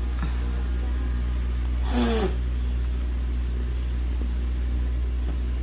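A steady low mechanical hum throughout. About two seconds in, one short burst of noise with a falling pitch.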